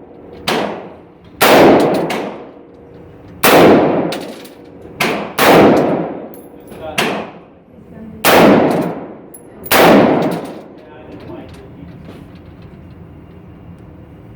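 About eight AR-15 rifle shots fired at uneven intervals over the first ten seconds or so, a few of them fainter than the rest. Each is a sharp crack followed by a long ringing echo.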